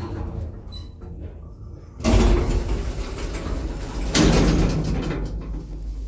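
Sliding car door of a 1980s Končar traction lift opened by its door operator. It bangs open loudly about two seconds in, with a second loud bang about two seconds later. The door operator opens the door violently.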